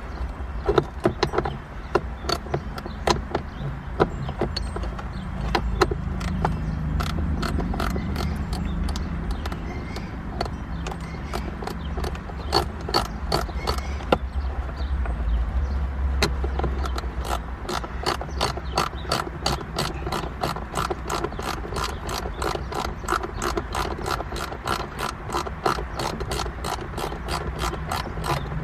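Hand ratchet wrench clicking as it works a bolt: scattered clicks at first, then a fast, even run of ratchet clicks through the second half.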